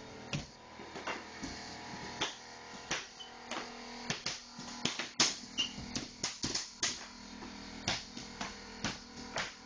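Sharp, irregular knocks of a flooring nailer driving fasteners into oak floorboards, about one to two a second, over background music.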